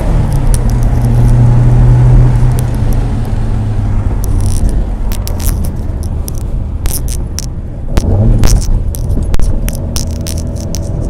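1963 Morris Mini Cooper's A-series four-cylinder engine heard from inside the cabin, running steadily at low revs after a drop in pitch at the start, with a brief rise in revs about eight seconds in and picking up again near the end. Light clicks and rattles from the cabin come and go over it.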